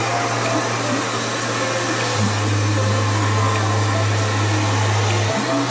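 Handheld hair dryer blowing a steady rush of air while hair is blow-dried and brushed. Its low hum drops lower about two seconds in and comes back up near the end.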